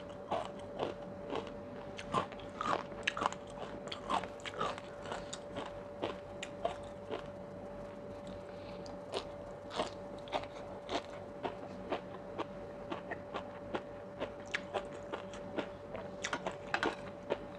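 Close-miked chewing of sea grapes, their small beads popping and crunching in quick, irregular clicks. A faint steady hum runs underneath.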